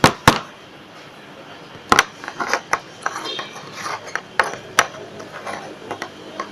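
Irregular sharp clicks and knocks of containers and utensils being handled while slime ingredients are got out and mixed.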